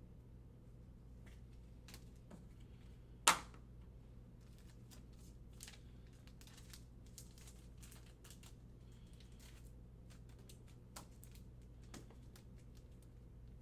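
Trading cards being handled and sorted: faint clicks and rustles of card stock and pack wrappers, with one sharp tap a little over three seconds in. A low steady hum runs underneath.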